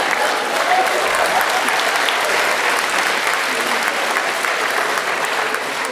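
Theatre audience applauding at a steady level, in reaction to a stand-up comedian's punchline.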